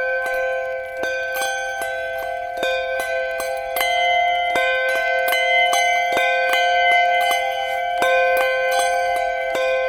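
Handbells rung in an even succession, a little under three strikes a second, at several different pitches, each note ringing on so that the tones overlap.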